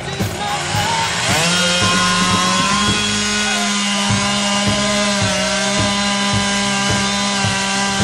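Chainsaw revving up about a second in, then running steadily at high revs. Background music with a regular beat plays underneath.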